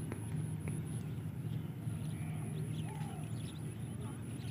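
Open-air ambience: a steady low rumble with faint, scattered high chirps and two light clicks in the first second.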